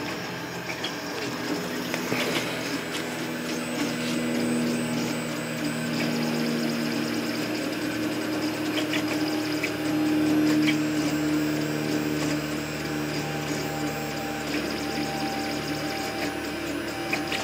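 3D printer's stepper motors (LDO steppers) running a high-speed print at 600 mm/s with 35,000 mm/s² acceleration. The print head's rapid moves give a steady whine in several tones that shift in pitch every few seconds, with a few light ticks.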